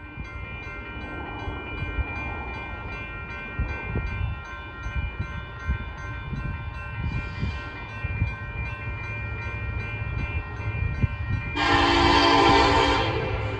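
Approaching freight train locomotive with wind rumbling on the microphone, then the locomotive's air horn sounding loudly for about a second and a half near the end.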